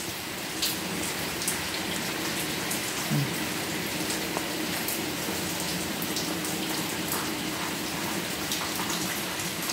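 Steady rain falling, an even hiss with scattered ticks of single drops.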